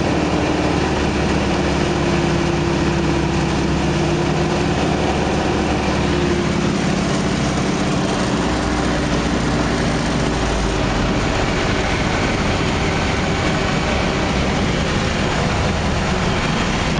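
Yak-52's nine-cylinder radial engine and propeller running steadily, heard from inside the cockpit together with loud airflow noise. The engine note is clearest in the first half, after which an even noise takes over.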